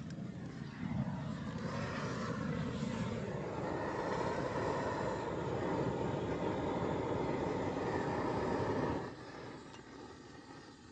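A motor or engine running, rising in pitch over the first few seconds and holding there, then cutting off sharply about nine seconds in, leaving a fainter hum.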